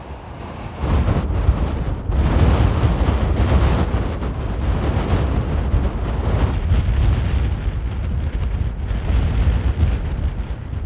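Strong mountain wind buffeting the microphone: a loud, gusty low rumble that rises sharply about a second in.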